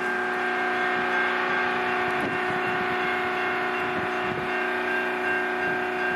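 Diesel locomotives of an approaching train running, a steady drone with several held tones.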